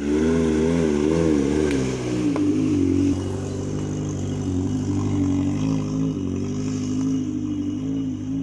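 Suzuki Katana 4x4's engine running, its pitch wavering up and down quickly for the first two seconds, then holding fairly steady with small rises and falls.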